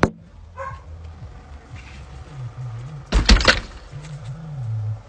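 A cat batting at a window pane, with a quick cluster of knocks about three seconds in. A low, wavering animal sound comes before and after the knocks.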